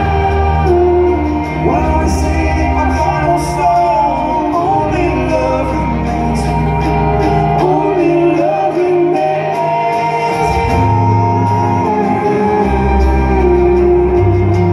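Live pop band playing a song, with a man singing lead over sustained low bass notes; the bass drops out for a couple of seconds about halfway through.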